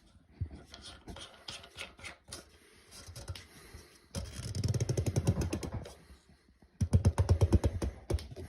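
Plastic toilet-tank parts clicking and knocking as a new fill valve is worked into place by hand. About halfway through come two bouts of rapid rattling clicks, each a second or two long.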